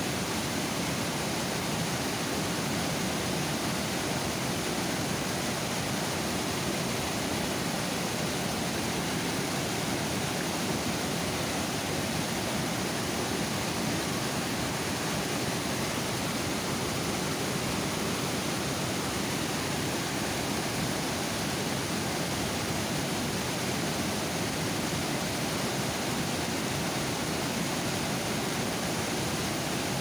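Water overflowing a dam and pouring over the spillway in a steady, unbroken rush.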